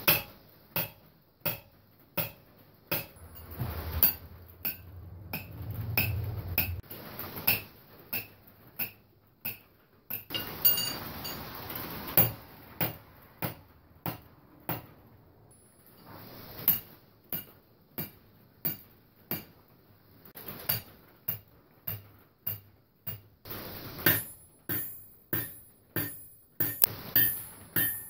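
Hammer striking steel anvils over and over in ring and rebound tests, roughly one to two blows a second, each blow ringing briefly. Near the end the ring is higher and lasts longer between blows.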